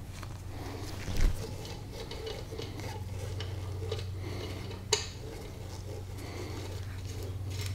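Steel suspension parts clinking and tapping as a VW swing axle's swing arm is fitted to the axle housing and its bolts are started by hand, with a dull thump about a second in and a sharp metallic click around five seconds in, over a steady low hum.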